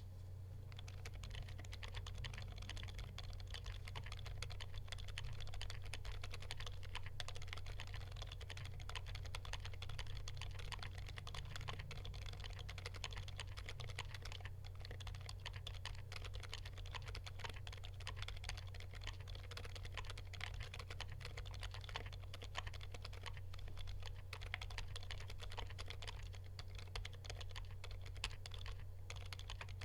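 Steady, fast typing on a mechanical keyboard fitted with Gazzew Boba U4 silent tactile switches: soft, dampened keystrokes in quick succession, over a steady low hum.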